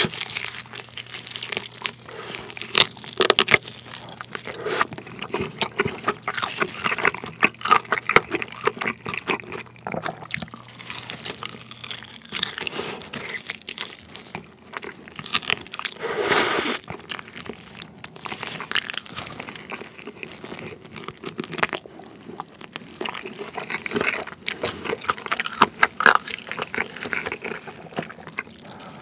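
Close-miked eating of BHC Red King fried chicken wings in a sticky red sauce: crisp crunching of the fried coating mixed with wet, sticky chewing, with a louder crunching bite about sixteen seconds in.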